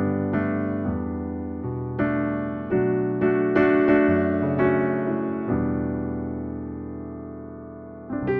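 Pianoteq 9 physically modelled software piano playing a slow passage of notes and chords. About five and a half seconds in, a chord is held and fades for about two and a half seconds, then new notes come in near the end.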